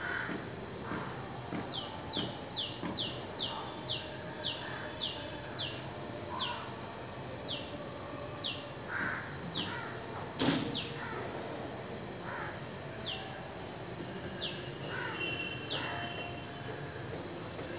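A bird calling over and over with short, high notes that each slide down in pitch, about two or three a second at first, then slowing to about one a second. A single sharp knock about ten seconds in is the loudest sound.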